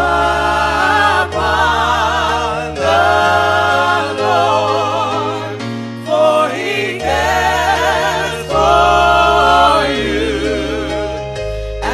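Gospel music: a choir singing with vibrato over held bass notes.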